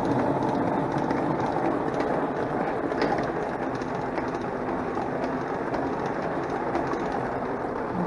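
Hand-spun portable non-electric washing machine: the basket of wet shirts spinning inside the plastic tub, a steady rumbling whir that eases slightly over the first few seconds, as the spin cycle throws the leftover soapy water out of the clothes.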